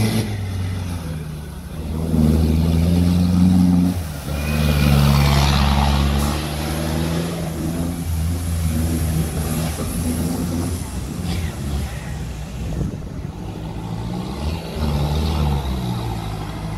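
Off-road 4x4's engine revving in a few long surges, about two, five and fifteen seconds in, and running lower in between.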